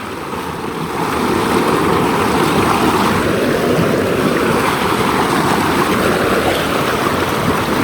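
Creek water rushing steadily over rocks, a loud even wash that swells slightly about a second in.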